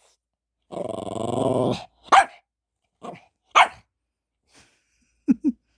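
A dog growls for about a second, then barks sharply twice with a weaker bark between, and gives two quick short barks near the end: impatient, annoyed barking at being made to wait for a treat.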